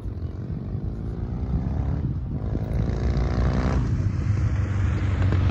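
A motor vehicle's engine, a low rumble growing steadily louder as it draws nearer, with a pitched engine note heard from about a second in until about four seconds in.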